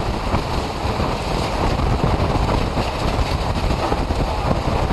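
Category 4 hurricane winds blowing steadily and buffeting the microphone, with wind-driven rain, in one loud unbroken rush.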